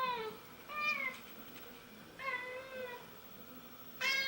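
Domestic cat meowing repeatedly while begging for food: a falling meow at the start, a short one about a second in, another just after two seconds, and a long, level meow beginning near the end.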